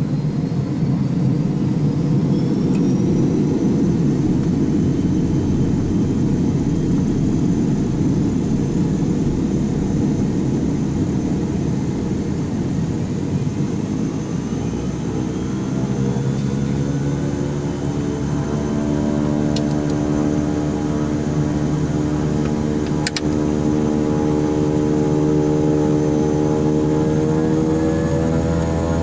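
Beechcraft King Air 90's PT6A turboprop engine starting, heard from the cockpit: a high turbine whine rises over the first few seconds and then holds steady over a heavy low rush. About halfway through, a stack of steady droning tones comes in as the engine settles into its run.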